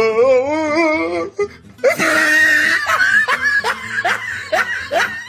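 A wavering, quavering voice for about a second, then a person laughing in repeated bursts, about two to three a second, over music.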